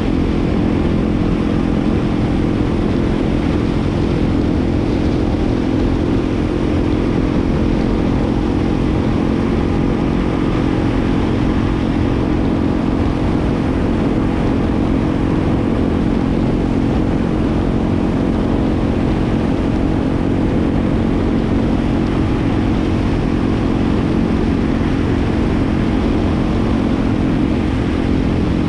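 Yamaha WR250R's 250 cc single-cylinder engine running at a steady pitch while riding at an even speed, with a heavy wind rumble on the microphone.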